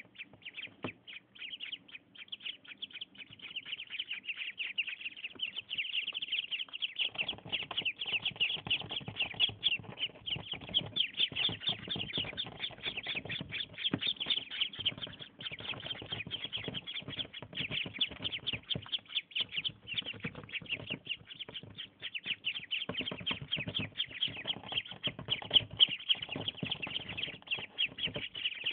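A box full of five-day-old ducklings peeping nonstop, many high-pitched peeps overlapping in a dense chorus. From about seven seconds in, a low rustling noise runs underneath.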